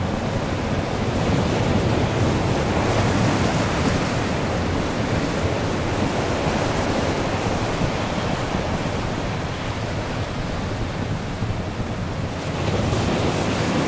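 Embraer E-Jet airliner's twin turbofan engines making a steady jet rush as it rolls down the runway. The rush eases a little near the end, then swells again.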